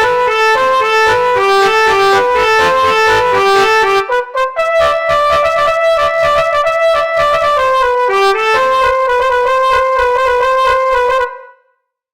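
Telolet bus-horn melody made in FL Studio, with brassy horn tones. It opens with a quick run of short alternating notes, dips briefly about four seconds in, then goes on with longer held notes and ends on one long held note that stops near the end.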